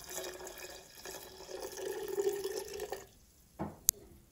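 Cooled vinegar-and-sugar pickling liquid poured from a pot into a glass jar of garlic cloves: a steady splashing pour with a steady note under it. The pour stops about three seconds in, followed by a soft knock and a sharp click.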